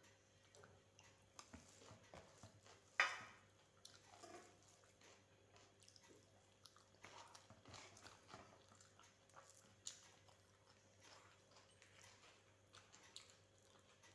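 Quiet chewing and wet mouth sounds of someone eating rice, with scattered small clicks and one sharp click about three seconds in.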